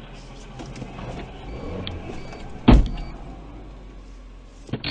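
A car that has just lost a wheel, heard from a dashcam car behind it: a rising scraping noise for about two seconds, then a single loud bang a little past halfway, and a shorter sharp knock near the end, over a steady low vehicle hum.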